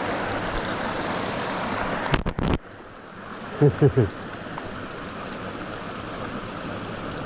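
River water rushing steadily. Just past two seconds there is a quick cluster of knocks, after which the rush is quieter, and a little later three short low calls, each dropping in pitch.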